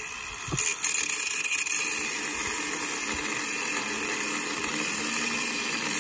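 Corded angle grinder with a cut-off disc cutting metal: a steady high whine with a grinding hiss, growing louder under a second in as the disc bites.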